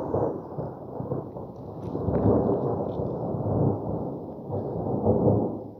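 Rolling thunder: a long, low rumble that swells and fades several times and cuts off suddenly near the end.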